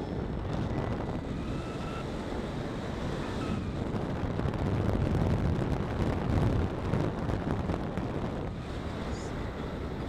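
Wind buffeting a camera microphone mounted on the outside of a moving car, over the car's road and engine noise; it swells a little louder in the middle.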